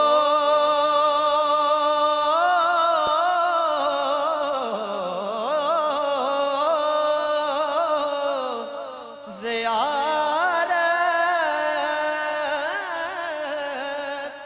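A young man singing a naat (Urdu devotional poem) solo into a microphone, with long held notes and ornamented turns. There is a short break for breath a little past halfway, and then the singing goes on.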